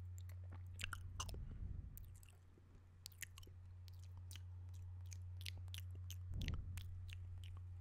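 Close-miked wet mouth sounds: a string of sharp wet clicks from the lips and tongue, with louder breathy bursts about a second in and again near the end.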